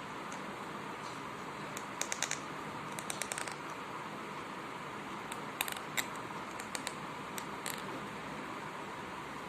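A child grinding his teeth (bruxism): short runs of sharp tooth clicks and grating. There is a quick cluster about two seconds in, another about three seconds in, and a few single clicks later on, over a steady hiss.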